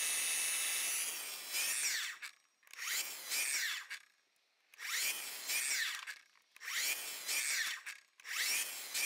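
Miter saw chopping short wooden blocks off a strip of framing lumber: five quick cuts in a row, the motor spinning up for each and winding down with a falling whine, with brief pauses between.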